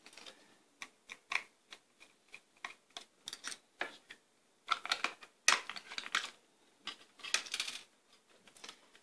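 Plastic clicks, taps and rattles from the black plastic housing of a USB bar speaker being handled and fitted together, its cable being tucked inside. Irregular single clicks, with a louder flurry of clicks about five seconds in and another about seven seconds in.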